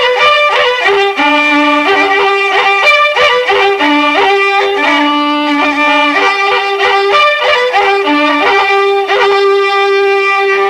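Andean folk instrumental led by a violin, playing a melody of long held notes that step up and down.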